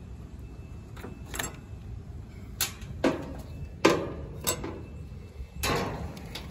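Metal clicks and knocks of a screwdriver working on a run capacitor's mounting bracket and the metal can capacitor being pulled out of an air conditioner condenser unit: about six sharp knocks, the loudest about four seconds in.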